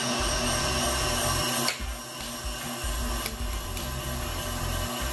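KitchenAid Artisan stand mixer's motor running steadily as the beater churns thick cake batter, with a few sharp clicks partway through.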